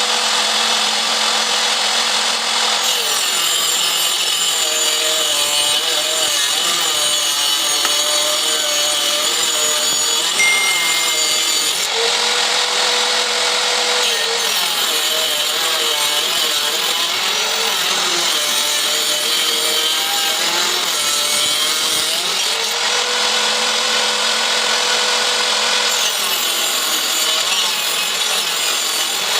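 Electric power saw cutting wood: the motor runs at a steady pitch, then sags and wavers under load as the blade cuts, three times over, with brief spells of free running between cuts.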